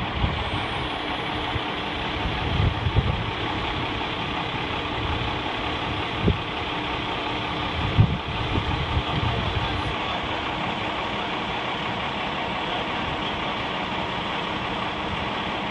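Mobile crane's engine running steadily at idle, with two brief thumps about six and eight seconds in.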